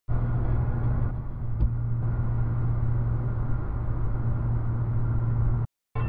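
Steady drone of road and engine noise from a car travelling at highway speed, heard from inside the cabin, with one brief knock about one and a half seconds in. It cuts off abruptly shortly before the end.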